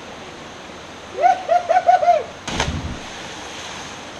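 A person's wavering yell of five quick rising-and-falling notes, then about half a second later a jumper's body hitting the creek water with one sharp splash. Steady water noise runs underneath.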